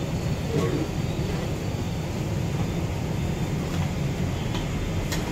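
Steady low rumble of roadside street noise and traffic, with a couple of faint clinks of steel serving utensils.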